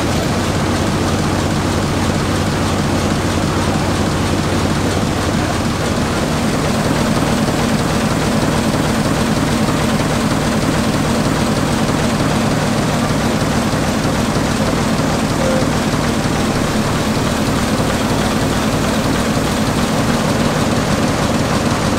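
1917 MAN S6V35 six-cylinder submarine diesel engine running steadily under load while driving an AC generator, getting slightly louder about six seconds in.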